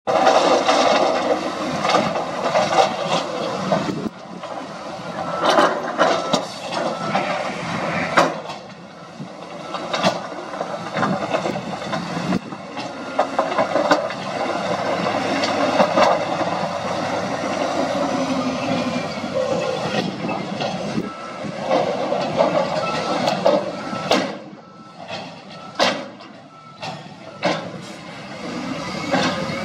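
Dump truck tipping its load: loose rock and soil sliding and clattering out of the raised steel bed, with many sharp knocks of stones falling, over the noise of the truck at work. Near the end it quietens to a few separate knocks.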